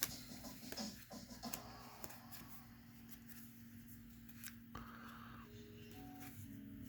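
Faint clicks and rustling of trading cards being handled and flipped through, mostly in the first second and a half, over a low steady hum.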